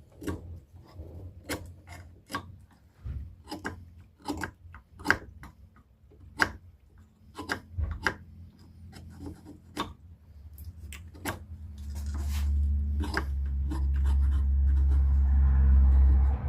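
Small pocket knife cutting and peeling bark from a beech stick: short, irregular scrapes and clicks of blade on wood. A loud low rumble builds up about twelve seconds in and carries on under the scraping.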